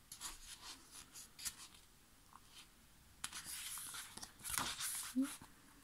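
Pages of a thick photobook being turned by hand: paper rustling, with a few short rustles in the first second and a half, then two longer swishes about three and four and a half seconds in.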